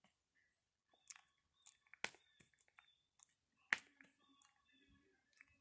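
Java macaque grooming a person's hair right at the microphone: a scatter of quiet, short, sharp clicks and crackles, the loudest a little past the middle.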